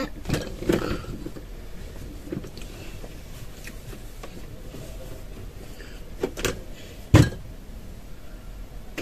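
A few scattered light knocks and thumps over a faint room background, the loudest a deeper thump about seven seconds in.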